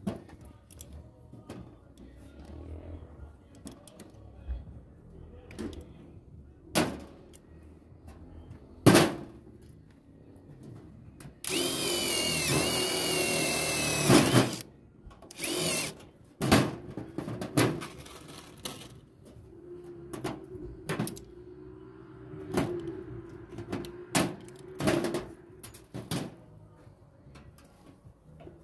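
A handheld electric power tool runs in one steady burst of about three seconds near the middle, with a high whine that wavers slightly, then a shorter burst a second later. Scattered knocks and clicks of tools and parts being handled fill the rest.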